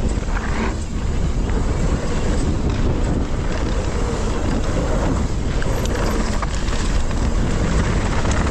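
Wind buffeting the action camera's microphone on a mountain bike ride: a steady, loud low rumble and rush.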